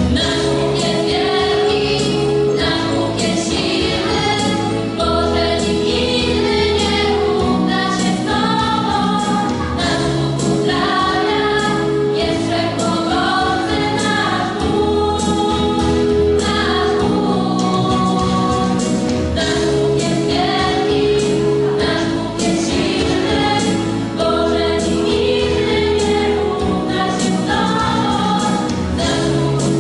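Girls' church choir (parish schola) singing a religious song over an instrumental accompaniment with held bass notes and a steady beat.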